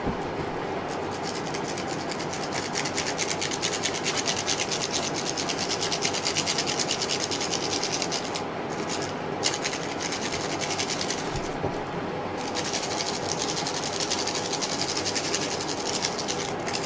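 Enamel sifter with a twisted-wire handle being worked so that its ridged handle rasps and the sifter vibrates powdered vitreous enamel through its mesh onto copper. It makes a fast, even rasping with two brief breaks, about eight and twelve seconds in.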